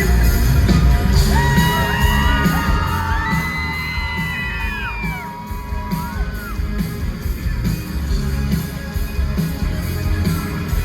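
Live rock band playing loudly, with heavy drums and bass. From about a second in to about six seconds, several high held cries rise over the music and bend down as they end, along with crowd yells.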